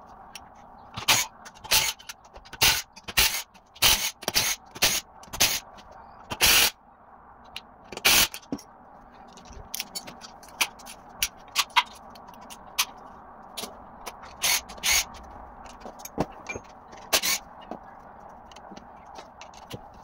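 Irregular short, sharp clanks and scrapes of metal tools and parts against the engine block during teardown, with a dense run of them in the first seven seconds and scattered ones after.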